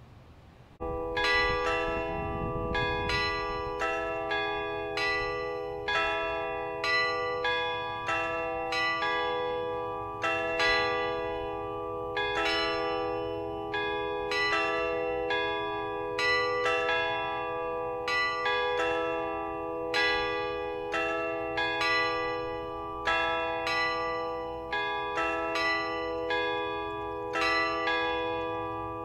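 Church bells ringing, struck over and over in a steady run of strokes, each note ringing on under the next; they start about a second in.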